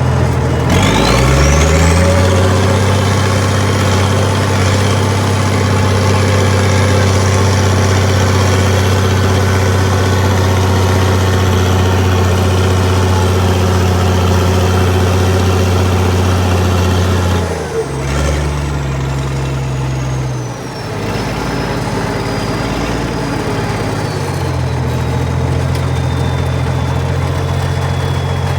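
Engine of an old International heavy machine running hard. It revs up about a second in and holds high for over fifteen seconds, drops back, then picks up again a few seconds before the end. A high whine climbs with the first rev and sinks slowly after the revs drop.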